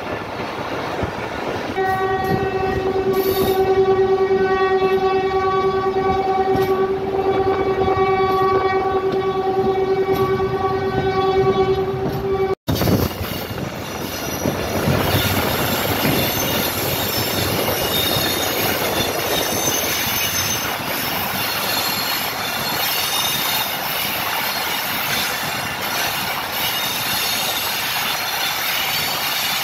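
Diesel locomotive horn sounding one long, steady blast of about ten seconds. After an abrupt break, the train runs on with continuous wheel-on-rail noise, with squealing and clickety-clack.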